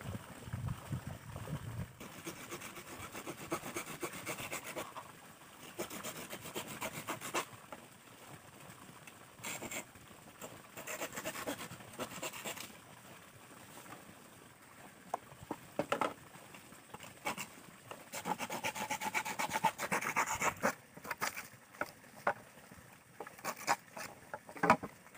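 A large knife scraping and sawing at a green bamboo pole in spells of rapid strokes, a few seconds each, with sharper separate knocks of the blade on the bamboo near the end.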